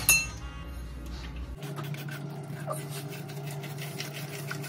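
A brief metallic clink of a steel strainer against a steel pan, then a steady low hum with faint ticks.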